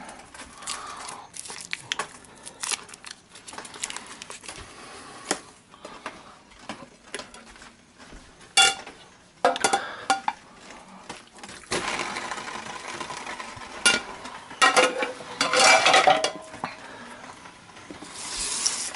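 Kitchen dishes and metal utensils clattering: a run of small clicks and clinks, with several louder clanks that ring briefly in the second half.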